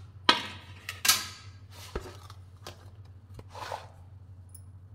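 Kitchen handling noises as fried puris are set out on a plate: a few sharp knocks and clatters of dishes and utensils with some scraping and rustling, the loudest about a second in, over a steady low hum.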